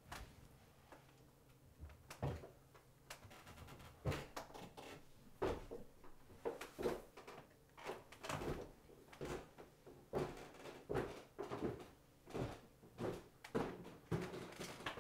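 Footsteps of a man walking slowly down an indoor staircase: a heavy tread about every three-quarters of a second, beginning about two seconds in, with a single knock right at the start.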